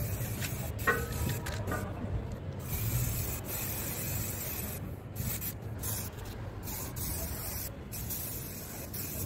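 Aerosol spray paint can hissing in long bursts, cut by several short breaks.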